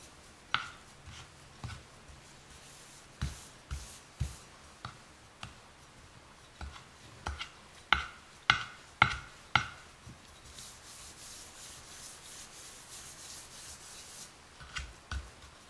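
A small steel bowl pressing a crumbly date-and-jaggery mixture flat in a steel plate: scattered knocks as the bowl is set down and pressed, with a run of louder ones about halfway through. Then comes a few seconds of steady scraping as the bowl is rubbed across the surface, and two light knocks near the end.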